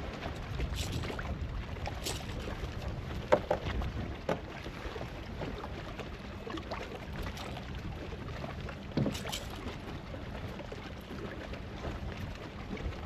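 Water moving around a kayak, with wind on the microphone, and a few sharp knocks against the kayak, the loudest about three seconds in and another about nine seconds in.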